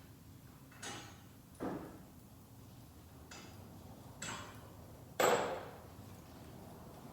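A handful of separate metallic clinks and knocks from hand tools and parts being handled, the loudest about five seconds in with a short ring.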